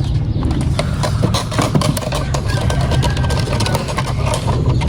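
A steady low engine hum, like a motor idling, under a run of small knocks and rattles as parts are handled.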